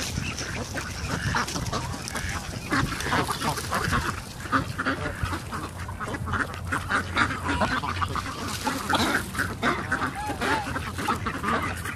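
A flock of mallards and domestic ducks quacking continuously in many short, overlapping calls, with geese honking among them.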